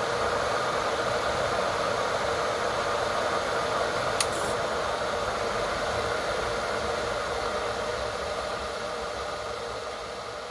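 Electric kettle heating water toward its set temperature: a steady hiss of the water heating, with one brief click about four seconds in, and the hiss slowly dying down near the end.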